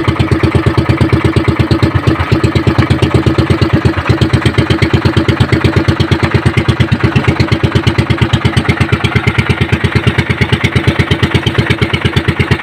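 Engine of a motorised outrigger fishing boat running steadily with a fast, even putter.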